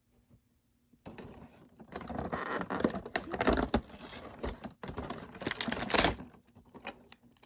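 Toy packaging being opened by hand: irregular crinkling, rustling and sharp clicks that start about a second in.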